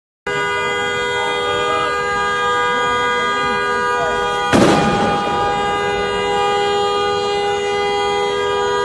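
A vehicle horn blaring continuously on one steady chord, with voices over it and a single loud bang about four and a half seconds in.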